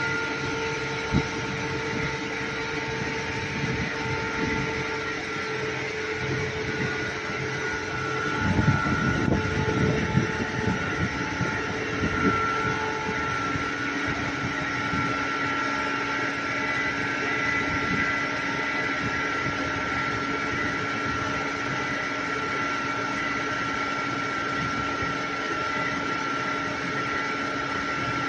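Fire-fighting robot's water cannon shooting a high-pressure jet, a steady rushing spray under a continuous mechanical drone with a high whining tone. A stretch of low rumbling and thumps comes from about eight to twelve seconds in.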